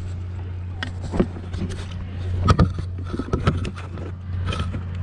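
Scattered knocks, scrapes and splashes of hands and a fish being handled aboard a kayak, loudest about two and a half seconds in, over a steady low hum.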